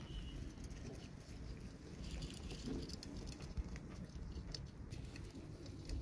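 Faint light pattering and scattered small clicks over a low steady rumble, with a brief high chirp right at the start.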